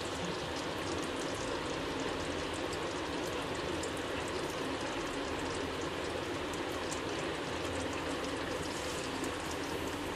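Beef stew boiling in a pan, with a steady bubbling and crackling of popping bubbles.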